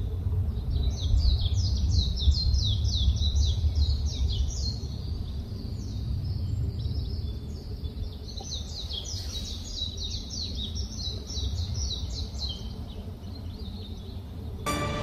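Birds chirping in quick runs of short, high, falling notes, several a second, over a steady low rumble.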